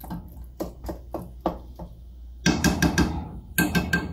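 Wooden spoon knocking against a stainless steel cooking pot while breaking up ground meat: single knocks about four a second, then two quick flurries of rapid taps, the louder ones in the second half.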